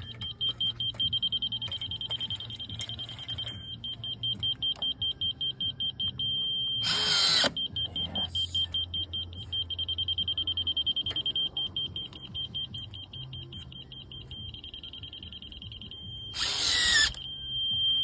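Laser-level receiver on a grade rod beeping: a high, rapid beeping that settles at times into a continuous tone, the solid tone marking that the rod is on grade. Two short bursts of noise break in, one about seven seconds in and one near the end.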